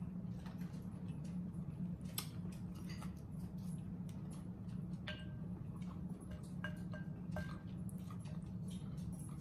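Close-up eating sounds: spoons clicking and clinking against glass bowls, a few clinks ringing briefly, with chewing and slurping. A steady low hum runs underneath.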